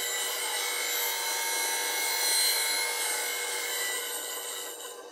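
Bench grinder wheel grinding a steel bowl gouge held in a Wolverine jig: a steady grinding hiss over the wheel's running tones as the bevel is lightly passed across the wheel to take down a high spot on the wing. It eases off near the end as the tool comes off the wheel.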